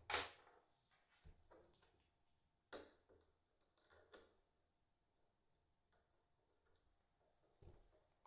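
A handful of quiet, separate clicks and taps, the sharpest right at the start: small screws and a hand tool being handled while fitting screws to a battery BMS busbar.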